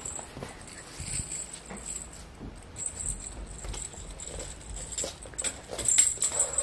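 Light, irregular taps and scrapes of a cat-wand toy's plastic rod and wire dragging and knocking on the floor as a cat carries the feather end in its mouth. Sharper clicks come in a cluster about six seconds in. A steady high-pitched whine runs underneath.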